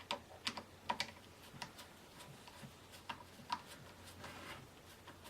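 Irregular light clicks and taps of a screwdriver and small metal and plastic parts as the screw of an AK pistol grip is seated and tightened, with a brief scrape about four seconds in.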